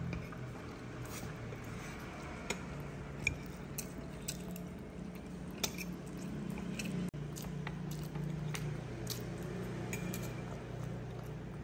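Baby monkey eating, with scattered wet smacking and clicking mouth sounds over a steady low hum.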